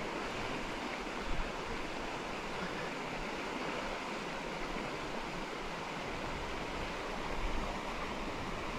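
Steady rush of river water flowing past, the river running high with water released from a dam upstream. One brief faint tap just over a second in.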